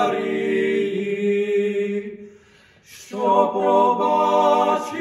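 Voices singing a Ukrainian Christmas carol a cappella, in slow held notes; the singing breaks off briefly about two seconds in and comes back strongly about a second later.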